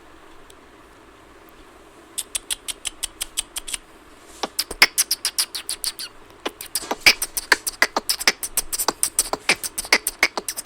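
Beatboxed mouth clicks. About two seconds in, a fast, even run of sharp clicks starts, about six a second. From about four seconds in, a louder, less regular string of clicks follows.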